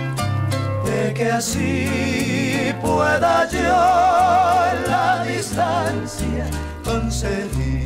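Paraguayan folk song played on Paraguayan harp and guitars over a bass alternating between two notes, with voices singing held, wavering notes from about a second and a half in until past the middle.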